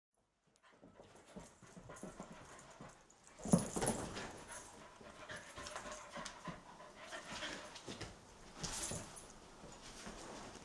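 Two dogs, a rough collie and a Belgian Tervuren puppy, playing rough: panting and scuffling with short clicks and rustles, with a louder sudden sound about three and a half seconds in and another near the end.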